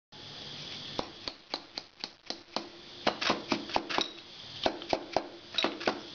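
Soft-faced mallet tapping the top of a Harley-Davidson Sportster 1200 Evolution's aluminium finned cylinder to drive it down over the piston and onto the crankcase. It is a quick, uneven run of about twenty sharp taps, about four a second, starting about a second in.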